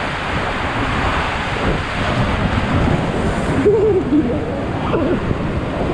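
Rushing water and wind noise from a tube sliding through an enclosed water-slide tunnel. About three and a half seconds in, the sound turns suddenly duller as the tube splashes out into the pool.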